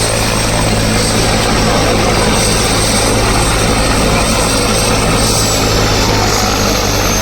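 Helicopter running close by: a steady low rotor drone under loud rushing noise, with a thin high turbine whine that drops in pitch about five seconds in.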